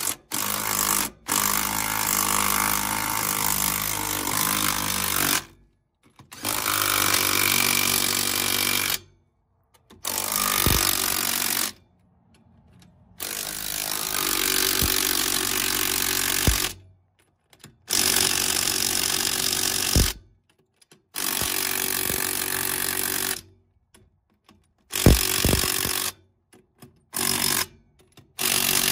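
Impact wrench running lug nuts onto a mobile home wheel to draw it onto the axle hub, in about ten bursts of one to four seconds with short pauses between, the last few bursts brief.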